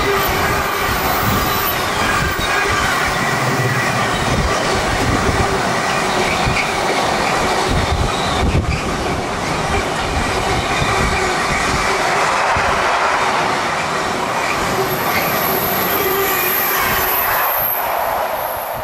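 A train running through on the rails: a loud, continuous rumble of wheels on track with wheel squeal over it, easing off near the end.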